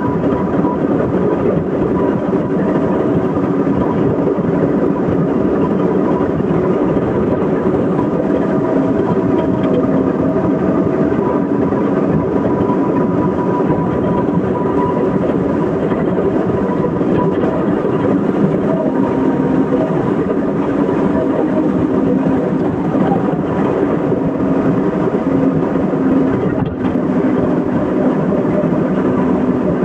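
Excavator's diesel engine running steadily, its hum holding an even pitch throughout.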